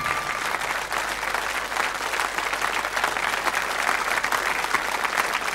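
Studio audience applauding: a dense, even wash of clapping. The last note of the closing theme music cuts off just as it starts.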